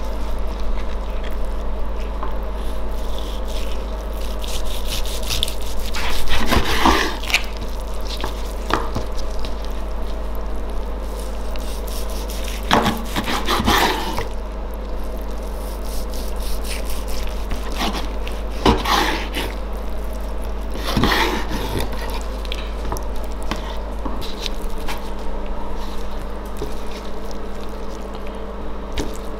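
A knife slicing through a smoked brisket and knocking on a wooden cutting board in several separate strokes, over a steady background hum.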